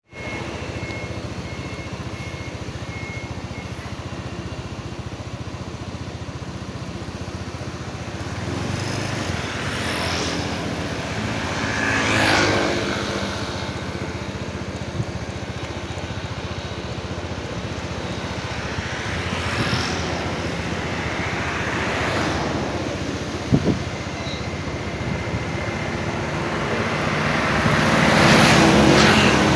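Road traffic passing by: a steady road rumble with vehicles swelling up and fading one after another. The loudest pass is about twelve seconds in, with a bigger one near the end.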